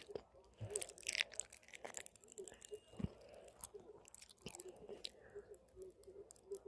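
Popping candy crackling: many small, sharp pops going off irregularly, some louder than others.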